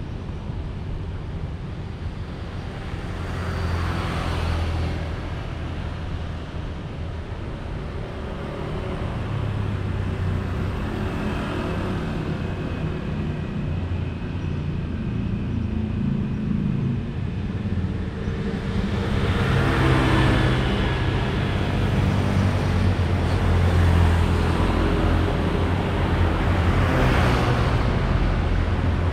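Road traffic of motorbikes and cars passing close by: a steady low rumble of engines and tyres, with single vehicles swelling up and fading as they go past. It grows busier and louder about two-thirds of the way through.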